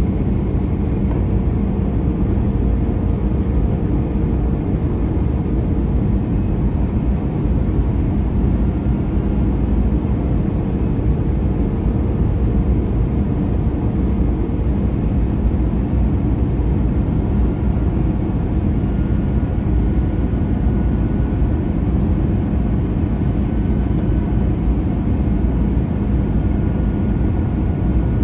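Steady low rumble of an Airbus A321 airliner's engines and airflow, with faint steady whining tones above it.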